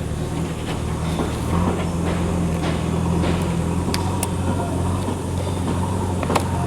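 An engine running steadily with a low drone, getting a little louder about a second and a half in, with scattered sharp clicks and ticks over it.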